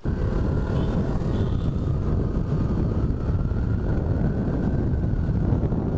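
KTM Duke 200's single-cylinder engine running steadily as the motorcycle cruises along, mixed with wind rushing over the bike-mounted microphone.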